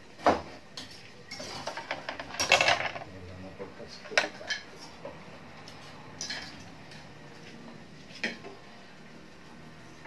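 Hard parts clattering and knocking as they are handled. A sharp knock comes right at the start and a burst of clatter follows about one and a half to three seconds in, then a few single knocks.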